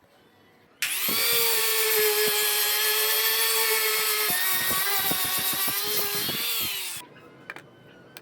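Handheld electric power tool running at a steady high speed on wood, starting suddenly about a second in and winding down and stopping near the end, with light ticks as it works the wood.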